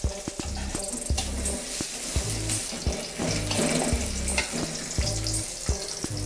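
Chopped onions sizzling in hot oil in an aluminium karahi, with a metal spatula scraping and knocking against the pan as they are stirred.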